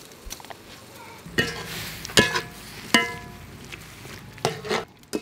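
Cauliflower being stir-fried in a metal wok: several sharp, ringing clanks of a metal utensil against the wok, with a low hiss between them.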